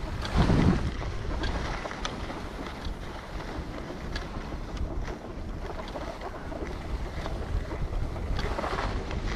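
Wind rushing over the microphone of a skier moving downhill, mixed with skis hissing over packed snow. A louder rush comes about half a second in.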